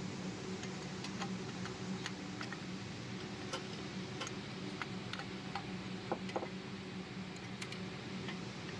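Light, irregular clicks and taps of hand tools on engine parts, about one or two a second, over a steady low hum.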